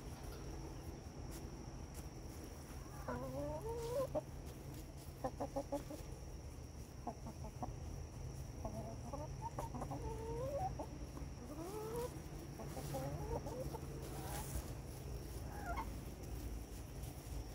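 Small flock of barred hens calling softly while foraging: short rising calls come in scattered groups, over a faint steady low hum.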